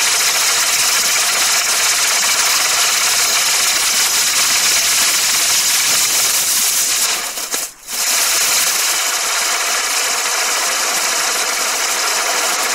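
Firework wheels spinning and throwing sparks: a loud, steady hissing buzz, broken once by a short gap about eight seconds in.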